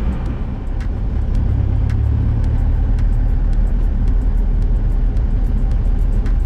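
Steady low rumble of a car's engine and tyres heard from inside the cabin while driving, as the car moves from a paved road onto a dirt farm track. Faint short clicks run through it.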